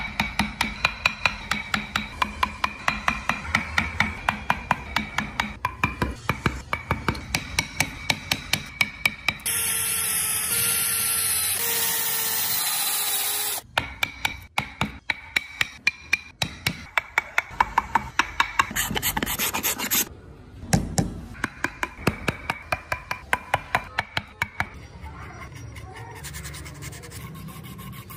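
A steel chisel cutting into hardwood with quick, sharp, regular taps, about three a second, carving out a recess. About ten seconds in, a steadier, louder noise takes over for some four seconds, then the tapping returns. Near the end there is softer rubbing of abrasive over wood.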